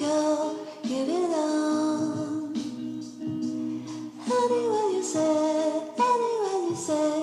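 Background music with a singing voice carrying a melody that slides between notes in phrases of about a second or two.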